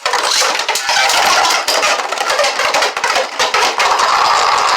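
Two Beyblade Burst tops, a stock Ultimate Valkyrie and a 3D-printed Stronghold Onslaught, launched at once and spinning and clashing in a plastic stadium: a loud, continuous rattle of rapid hits and grinding that starts suddenly.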